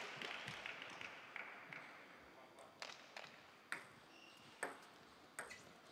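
A plastic table tennis ball bouncing: a handful of sharp, ringing pings spaced about half a second to a second apart, heard between points while the ball is out of play. Faint hall noise dies away over the first couple of seconds.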